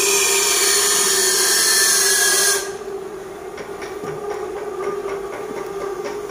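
Loud steady hiss that cuts off suddenly about two and a half seconds in, over a steady machine hum that carries on, with faint light ticks after the hiss stops.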